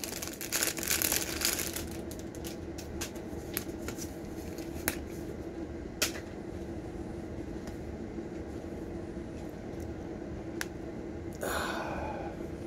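Hands unwrapping a plastic-packaged item: dense crinkling and rustling for about two seconds, then scattered small clicks and taps as it is handled, over a steady hum, and a short burst of rustling near the end.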